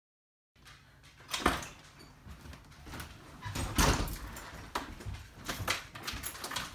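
A house's front door and glass storm door being opened and pushed shut: a string of knob and latch clicks and knocks, the loudest about four seconds in.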